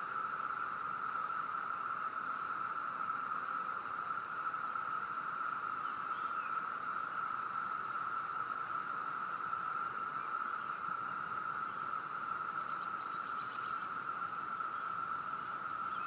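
Chorus of Brood II periodical cicadas, a steady, unbroken drone from thousands of insects in the trees, likened to a car alarm.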